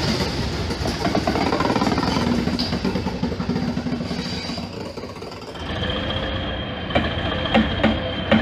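Hastings 'Thumper' diesel-electric multiple unit under power, its English Electric diesel engine running with a steady hum as the carriages roll past. After a short dip about five seconds in, the sound changes to the unit's engine running with a steady whine and a run of sharp knocks.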